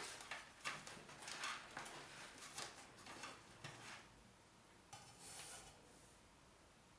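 Faint handling noises: electrical cords and wires rustling and scraping as they are pulled and sorted by hand, in a quick run of short scratches over the first few seconds and one more about five seconds in.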